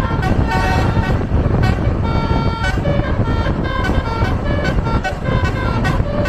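Indonesian bus 'telolet' multi-tone horn playing a quick melody of short notes that jump from pitch to pitch, over the low rumble of the bus.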